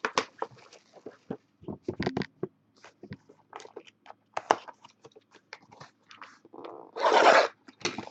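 Plastic shrink-wrap on a trading card box being crinkled and torn open: a run of sharp crackles and clicks, with one louder half-second rip near the end.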